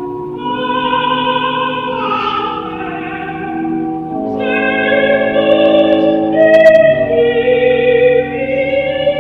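Slow background music: long held notes over sustained chords, the melody moving to a new note every second or two.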